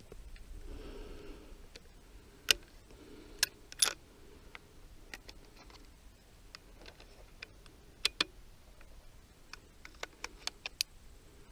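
Scattered sharp clicks and taps: a few about three to four seconds in, a pair around eight seconds, and a quick run of small clicks near the end. They are handling noise from the rifle and the camera riding on it.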